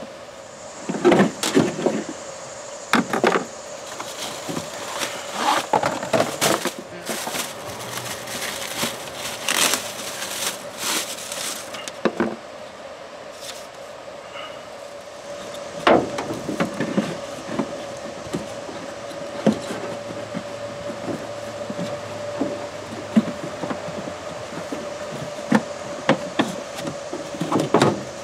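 Hand-handling sounds of a cabin air filter change at the car's cowl: clear plastic wrapping crinkling and rustling, and scattered clicks and knocks of plastic cowl and filter parts. The crinkling is thickest in the middle of the stretch, with a faint steady tone underneath.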